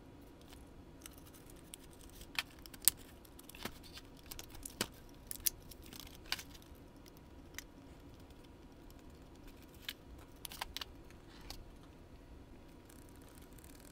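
Sharp little clicks and taps of plastic locomotive truck parts and a small metal screwdriver being handled and fitted together on a workbench, coming in two scattered clusters, the loudest about three seconds in.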